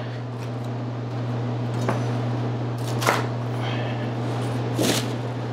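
A chef's knife (a Shun 8-inch) making three light cuts or knocks on a cutting board, spaced a second or two apart, as vegetables for a mirepoix are broken down. A steady low hum runs underneath.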